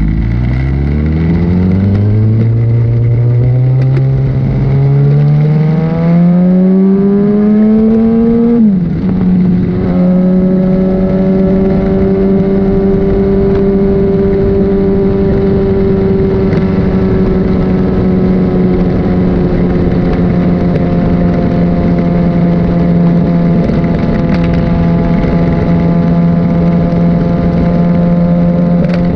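Literbike sport-bike engine pulling hard, its pitch climbing steadily for about eight and a half seconds. It then drops sharply with an upshift and holds a steady pitch at cruising speed, with steady wind rush behind it.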